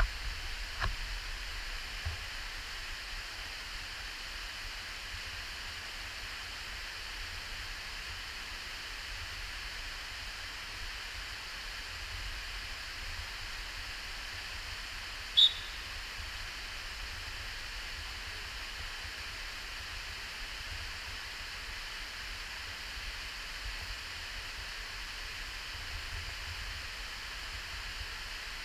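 Waterfall rushing steadily into a narrow rock gorge. A single short high-pitched chirp stands out about halfway through.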